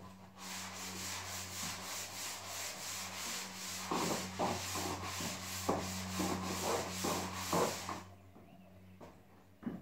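Hand sanding of drywall plaster on a wall: rhythmic back-and-forth scratchy strokes that stop about eight seconds in, with a few light knocks in the middle. A steady low hum runs underneath.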